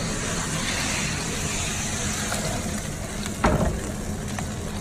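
Steady hiss and low hum of a hot restaurant oven with meat roasting in it, and a single short metal clank about three and a half seconds in as the roasting tray is drawn onto the oven mouth.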